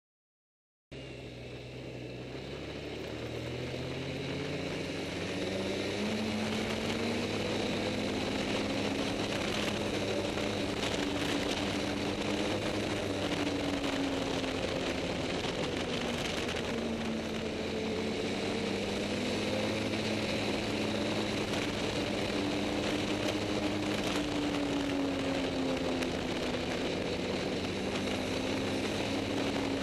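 Snowmobile engine heard from the rider's seat, starting suddenly about a second in, its pitch climbing over the first few seconds as it picks up speed, then rising and falling with the throttle while riding, over a steady rush of noise.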